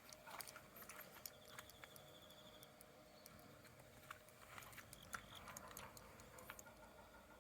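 Near silence with faint scattered clicks, and a brief fast high trill about a second in.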